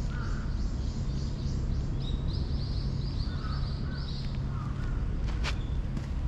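Small birds chirping in runs of quick, high, repeated notes, several a second, over a steady low rumble. A single sharp click sounds about five and a half seconds in.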